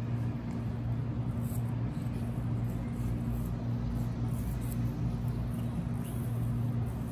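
A steady low hum, with a few faint, brief, high-pitched squeaks from baby monkeys, one about six seconds in.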